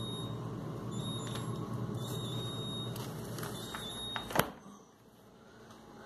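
Refrigerator door-open alarm giving short high beeps about once a second over the fridge's steady hum: the door has been left open too long. About four seconds in the door is shut with a sharp thud, the loudest sound, and the beeping stops.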